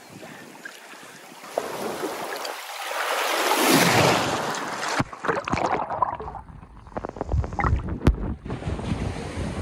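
Wind and water noise around a kayak on open water: a rush that swells and fades over the first few seconds. About halfway it changes abruptly to wind buffeting the microphone, with a low rumble and scattered small knocks.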